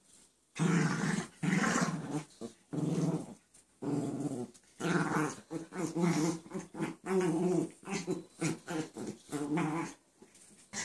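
Small dog growling in play, a string of rough, throaty growls with short breaks starting about half a second in: play-fighting, not aggression.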